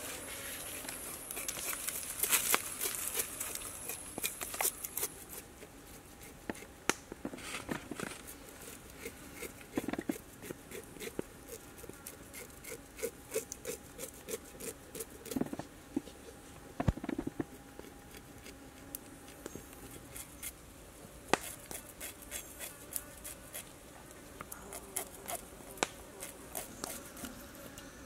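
Knife blade scraping the scales off a snake's skin over a metal wok: a long run of short scrapes and sharp clicks, busier for the first few seconds.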